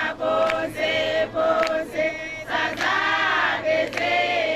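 A group of people singing together, sustained sung notes from many voices.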